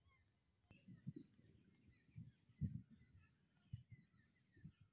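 Faint birdsong of scattered short chirps over a steady high hiss, with soft low thumps every second or so.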